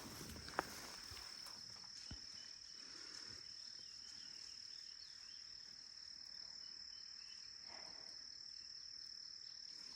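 Insects trilling in a steady, high, even tone, faint against light field noise, with one sharp click just after the start.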